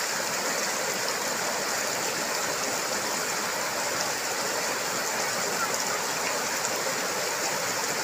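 Fast shallow stream rushing and churning over boulders: a steady rush of white water.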